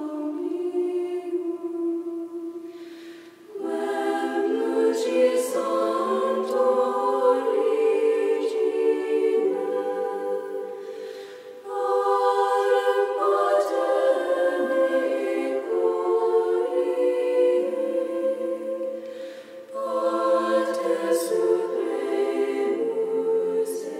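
A choir singing a hymn in several voices, in four phrases with a short break before each new one, about 3, 12 and 19 seconds in.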